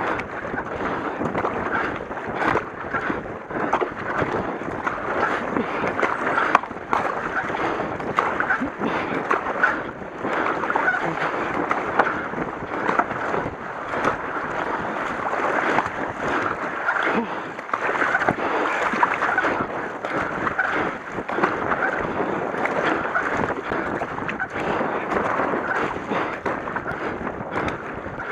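Racing kayak paddle strokes splashing and water rushing and sloshing past a K1 hull, heard up close.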